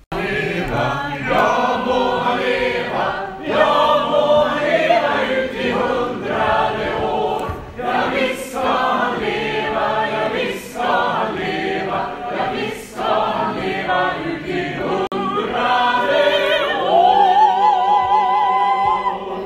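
A choir singing in several parts, ending on a long held chord with vibrato that cuts off suddenly.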